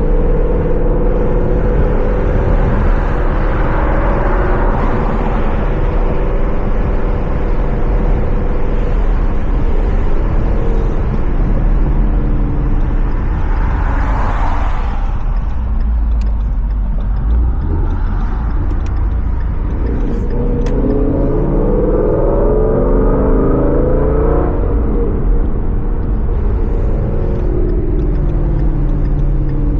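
Ford Mustang GT's Coyote 5.0 V8 running through a Corsa Xtreme cat-back exhaust while driving, the engine note rising and falling with throttle. A stronger pull climbs in pitch about two-thirds of the way through, then eases off.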